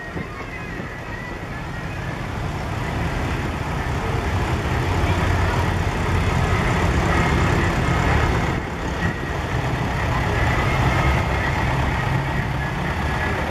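Vintage tractor engines running at low speed as the tractors drive past one after another. The engine sound swells to its loudest about halfway through as a grey Ferguson tractor passes close, then holds as a red tractor follows.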